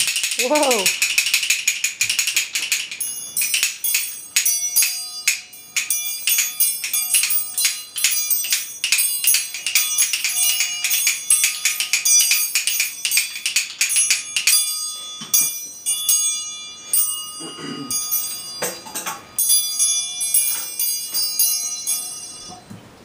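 Toy percussion being played: a tambourine's jingles shaken for the first few seconds, then the metal bars of a toy xylophone struck with a mallet over and over, quick and irregular, each strike ringing. A child's voice calls out briefly a couple of times.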